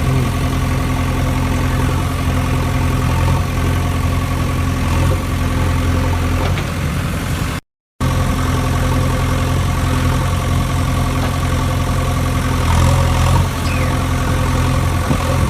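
An engine idling steadily, with a low, even hum. It cuts out completely for a moment about halfway through, then carries on.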